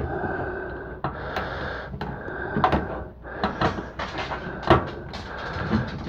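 Hand screwdriver backing a motherboard mounting screw out of its standoff in a series of short twists, scraping with sharp clicks between the strokes.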